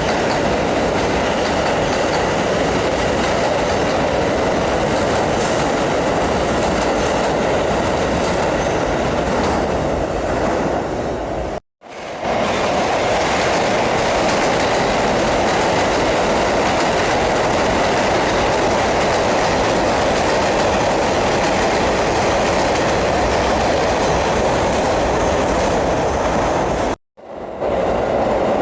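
New York City subway train running through an underground station: a loud, steady rumble and clatter of steel wheels on rails. The sound cuts out abruptly for a moment about twelve seconds in and again near the end, then resumes.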